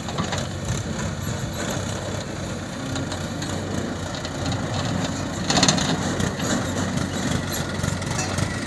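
Diesel engines of a JCB 3DX backhoe loader and a Mahindra tractor running steadily while the backhoe digs sand. A short, louder rough noise stands out about halfway through.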